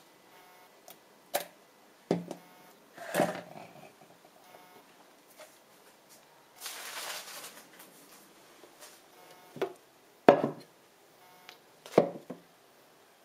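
Hard plastic juicer parts being handled, knocked and set down in a stainless steel sink: about six sharp, separate knocks and clatters, with a short rush of noise lasting about a second midway.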